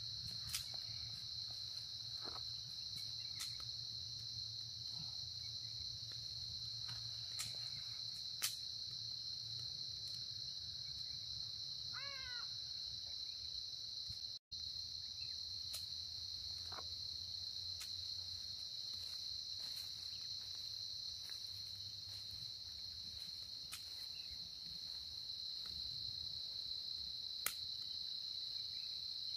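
Steady, high-pitched chorus of crickets at dusk, with a few sharp clicks and one short bird call about twelve seconds in.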